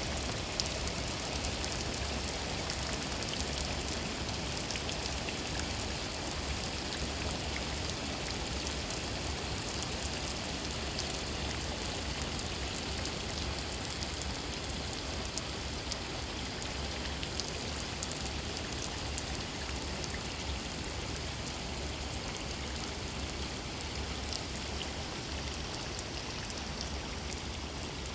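Steady thunderstorm rain: an even hiss with scattered drop ticks.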